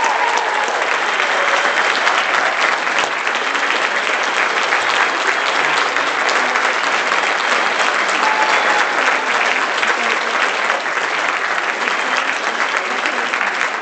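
Theatre audience applauding steadily, a dense even clapping that holds at the same level throughout.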